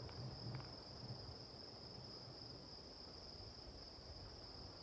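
A chorus of crickets trilling steadily: a continuous, faint, high-pitched hum with no breaks.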